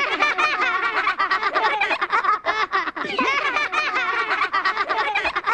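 Rapid, high-pitched cartoon chattering vocalizations, like fast babbling or snickering, chopped into many short bits.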